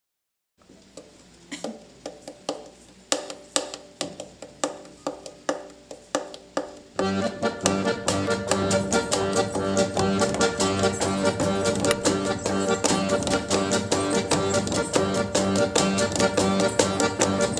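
Romani folk ensemble of violins, accordion, cello and double bass playing a tune. It opens with a sparse pulse of short accented notes, about two a second, and about seven seconds in the full band comes in, much louder.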